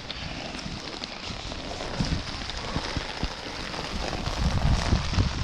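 Rain falling steadily with scattered raindrop ticks, and wind buffeting the microphone, the low rumble growing stronger near the end.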